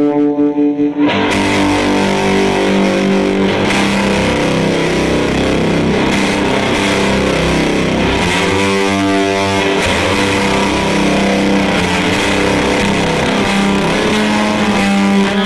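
Electric guitar played through an EarthQuaker Devices Fuzz Master General fuzz pedal into a miked Fender Deluxe Reverb amp: sustained, distorted notes and chords that change about a second in and again past the middle.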